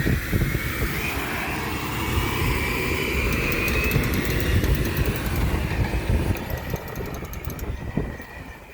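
Road traffic passing close by at an intersection: vehicle engines and tyre noise with a rising and falling whine, dying away over the last couple of seconds.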